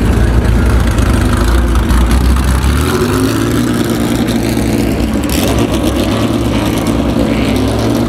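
Air-cooled flat-six of a vintage Porsche 911 race car running at low speed, a steady engine note that shifts about three seconds in as the car pulls away.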